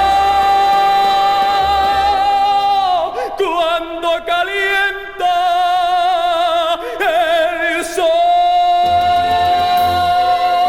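A male ballad singer holds long, high notes with vibrato over an orchestra in the climactic ending of a 1960s Spanish pop song, played back from a vinyl LP. The first note holds for about three seconds, a few shorter notes follow, and another long note comes from about eight seconds in.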